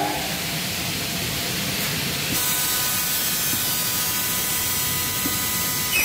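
Faster F450 double-head aluminium cutting saw running for a test cut: a steady hiss, joined about two seconds in by a high, even whine from the spinning blades.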